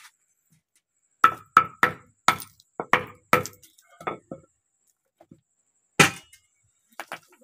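Slabs of ice on a cloth over a concrete floor being broken up with a wooden stick: a quick run of about a dozen sharp knocks and cracks over three seconds, then one heavy blow a little later and a couple of lighter ones near the end. The ice is being crushed fine for churning yogurt into lassi and butter.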